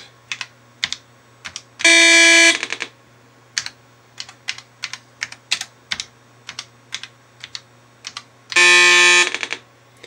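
Two buzzy beeps, each about two-thirds of a second long, from a TRS-80 Color Computer 2 running BASIC SOUND commands through a makeshift hex-buffer and R2R-ladder DAC, a cheap amplifier and an old speaker. The second beep is lower than the first. Computer keys click between and around them as the commands are typed.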